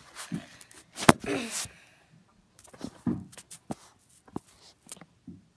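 Handling noise from a phone being set down and propped up: a hard click against the microphone about a second in, a short scrape of rubbing, then a run of small knocks and clicks as it is adjusted.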